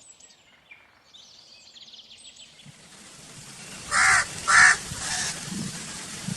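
Crow cawing: two loud, harsh caws about half a second apart, four seconds in, then a fainter third. Faint, high chirps of small birds come before them.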